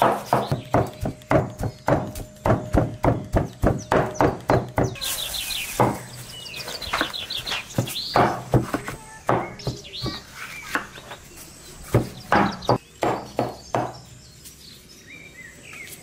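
Kitchen knife chopping on a wooden cutting board: fast, even strokes for about the first five seconds, then slower, separate cuts through green bell peppers. Birds chirp in the background.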